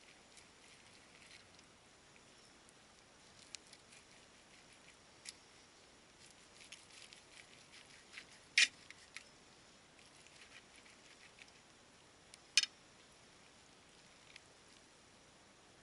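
Carving knife and fork working through a roast turkey in a metal roasting pan: faint scraping and crackling as the blade slices the meat, with two sharp clinks of metal on metal, a little past halfway and again about four seconds later.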